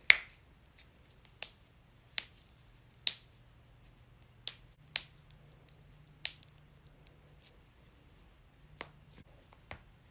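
Joints cracking: a series of sharp, separate pops at uneven intervals, about nine in all, the loudest right at the start and around two and three seconds in.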